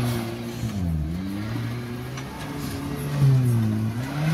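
An off-road 4x4's engine revving, its pitch dipping and climbing again several times as the throttle is worked. The loudest climb comes about three seconds in.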